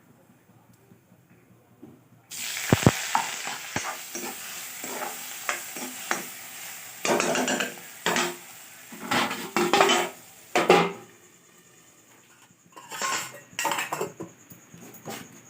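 Tempering (chhaunk) for bottle-gourd curry: food hits hot oil in a pan about two seconds in with a sudden loud sizzle. A spoon then scrapes and clatters in the pan as it is stirred, with a few more clinks near the end.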